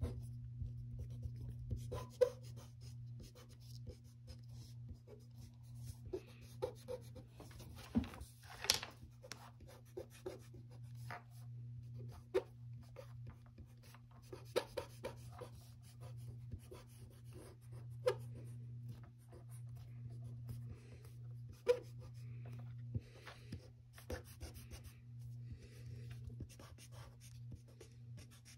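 A pen scratching and tapping on paper in short, irregular strokes, with a steady low hum underneath.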